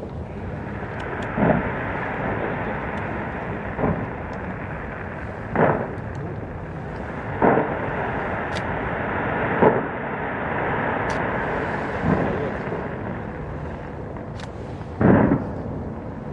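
Aerial fireworks shells bursting: seven separate booms roughly two to three seconds apart, the loudest near the end, over a steady background noise with faint scattered crackles.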